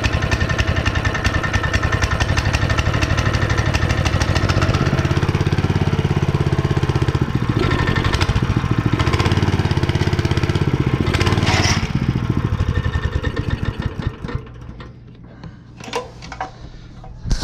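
Honda GX160 single-cylinder four-stroke engine, run for the first time in years, running steadily, then throttled down about 12 seconds in to a much quieter low idle while the idle is set. A few light clicks sound near the end.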